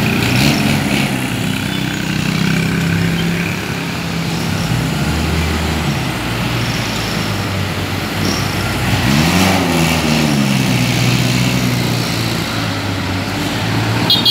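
Street traffic passing close by: engines of cars, motorcycles and a jeepney running steadily, with one vehicle going past about nine seconds in, its engine pitch rising and then falling.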